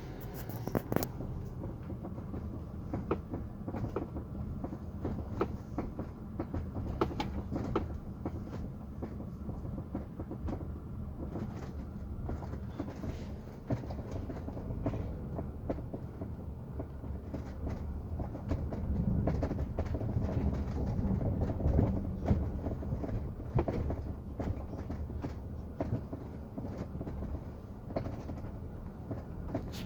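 Cabin noise of a moving Geely Atlas, with a steady low road rumble and many short crackling creaks from the larger section of the rear seat.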